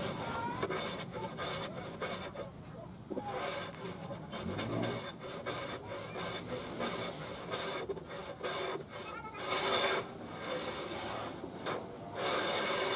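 Hand plane shaving the edge of a wooden board in repeated push strokes, each pass a rasping hiss of the blade lifting a curled shaving. A couple of louder, longer passes come in the last few seconds.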